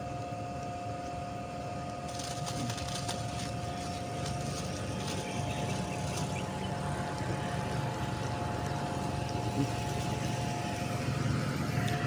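Steady mechanical hum with a constant whine over a low rumble. About two seconds in, a light hiss with faint ticks joins it.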